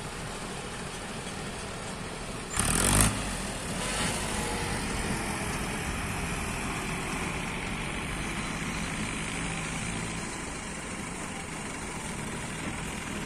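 Diesel farm tractor engine running steadily as it pulls two trailers loaded with sugarcane past. A brief loud burst of noise comes about two and a half seconds in.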